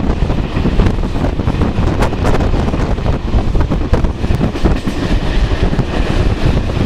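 Loud, steady rumble of a moving vehicle with wind buffeting the microphone and scattered clacks throughout.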